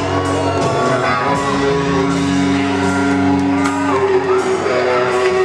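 Music with guitar and a steady beat.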